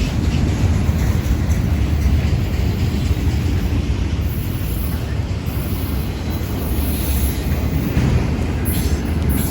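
Freight train rolling past: a steady low rumble, with wind buffeting the microphone. High-pitched wheel squeal starts near the end as the cars move into a siding.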